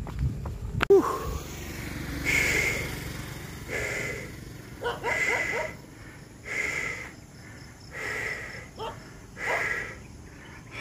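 Runner's footfalls on pavement, a sharp click about a second in, then heavy rhythmic breathing, one loud breath about every one and a half seconds: out of breath from running.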